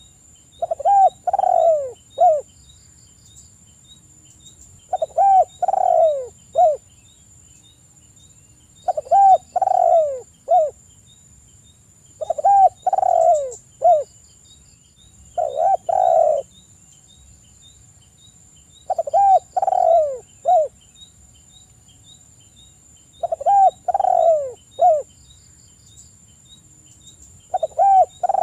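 Spotted dove cooing its three- to four-note song phrase, repeated about eight times at a steady pace of one phrase every three to four seconds. Under it runs a faint, fast, steady ticking like insects.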